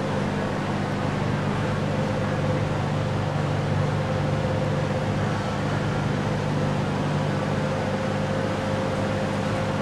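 A steady mechanical hum with low droning tones and a fainter higher tone, unchanging throughout.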